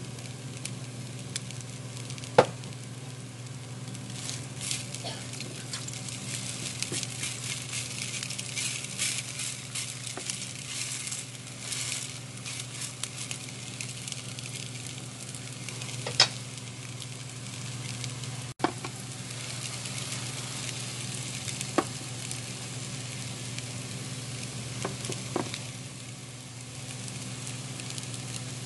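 Potato pancake frying in oil in a nonstick frying pan: steady sizzling with fine crackling, broken by a few sharp clicks.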